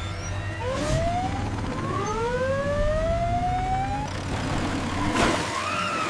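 Emergency-vehicle siren sound effect: one long tone rising slowly in pitch, over a steady low engine rumble, with a burst of noise about five seconds in.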